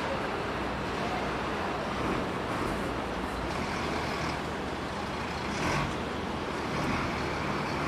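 Steady street din of traffic and vehicle engines.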